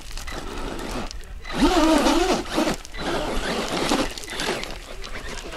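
Radio-controlled off-road car's tyres spinning and scrabbling in loose gravel and dirt as it climbs a steep slope, in rasping bursts. A person calls out loudly for about a second, starting about a second and a half in.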